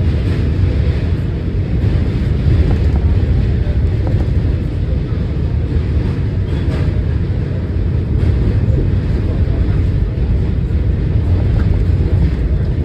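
New York subway Q train running, a steady loud rumble with a few faint clicks.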